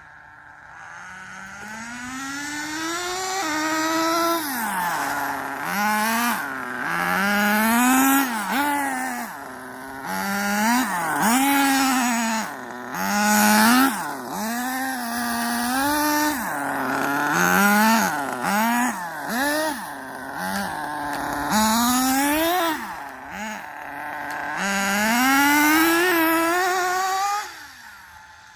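Battery-powered RC Traxxas Rustler with a Jato two-speed transmission driving fast. Its motor and gear whine rises and drops back again and again as the throttle is punched and let off, over the hiss of tyres on the ground.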